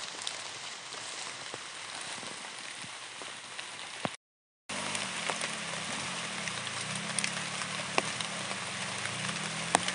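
Light drizzle hissing steadily on foliage, with scattered drops ticking on leaves. After a brief break about four seconds in, the low, wavering hum of a distant trail motorcycle engine joins the rain and grows a little stronger near the end.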